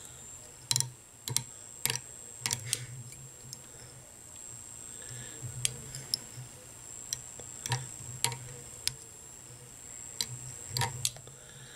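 Small irregular clicks and ticks, about one or two a second, from fingers handling the ribbing as it is wrapped forward around a fly-tying hook held in the vise.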